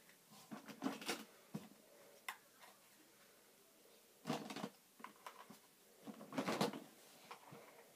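Rummaging through small toys and their carriers: bursts of clattering and rustling as things are picked up and moved, the loudest about a second in, around four and a half seconds in, and between six and seven seconds in.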